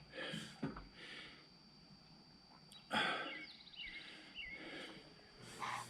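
Faint outdoor ambience: scattered small bird chirps, with a few short hissing noises, the clearest about three seconds in, and a thin steady high-pitched tone underneath.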